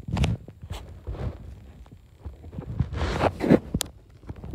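Irregular rubbing, rustling and bumping as a camera brushes against a curly-coated dog's fur while the dog moves, with one sharp click a little before the end.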